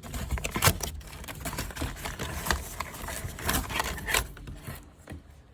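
Cardboard box and packaging scraping and rubbing, with irregular sharp clicks and crackles, as the boxed scarecrow prop is pulled and handled; the noises die away near the end.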